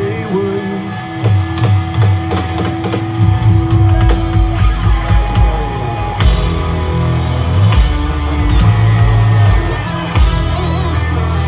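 Live country-rock band playing loud, with drums, guitars and bass. Separate drum hits give way to the full band kicking in about three seconds in, and the cymbals get louder about halfway through.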